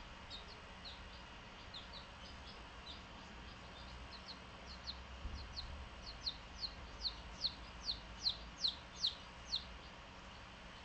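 Baby Japanese bantam chicks peeping: short, high, falling chirps, faint and scattered at first, then louder and evenly spaced from about halfway, roughly two or three a second.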